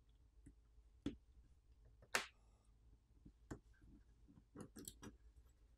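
Faint, sparse clicks and taps of a phone's SIM tray being removed: a sharper click about two seconds in, then a quick cluster of small clicks near the end.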